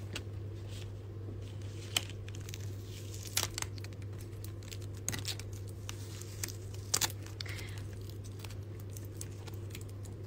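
Handling noise on the phone that is recording: fingers tapping and rubbing on it, giving scattered sharp clicks and soft rustles over a steady low hum.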